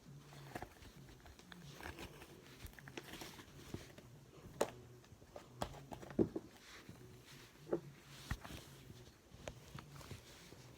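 Slime being squished and played with by hand, giving scattered soft, sticky clicks and pops at an irregular pace, the loudest about six seconds in.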